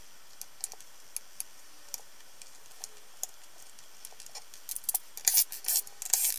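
Light, scattered plastic clicks as the small white screw caps are pried out of the speaker's plastic back panel. About five seconds in, a denser run of scraping and clicking as a screwdriver is set to the screws.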